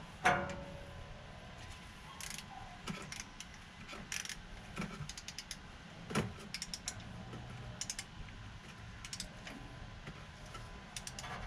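Click-type torque wrench tightening differential cover bolts, with short runs of ratchet clicks. A sharp metallic click with a brief ring comes just after the start and another about six seconds in, as the wrench signals it has reached its 20 ft-lb setting.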